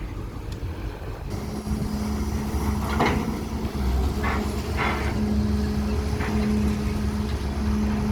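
Diesel engine of a CAT 320 long-reach excavator running, its steady hum growing louder about a second and a half in as it works. A few short noisy bursts come in the middle.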